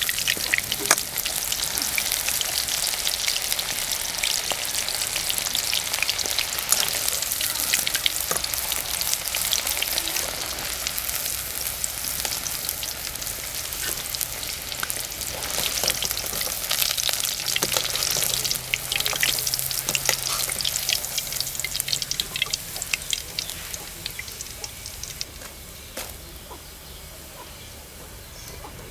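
Chicken pieces frying in hot oil, a dense steady sizzle and crackle that dies down over the last few seconds.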